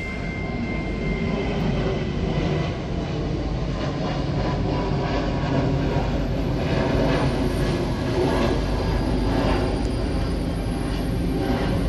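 Tri-Rail diesel locomotive approaching slowly, its engine rumbling steadily and growing a little louder. From about six seconds in, its wheels clack over the rail joints and switches of the junction.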